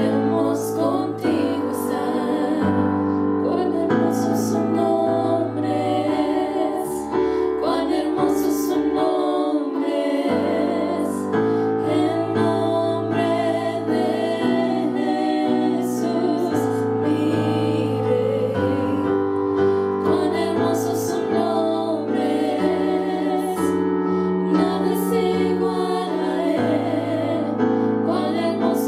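Three women singing a worship song into microphones, their voices wavering with vibrato over steady keyboard chords.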